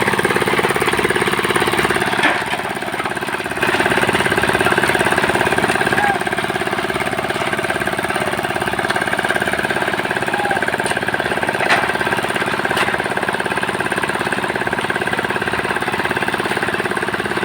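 Powered road-construction machinery running steadily with a fast, even pounding, easing off briefly about three seconds in and then picking up again.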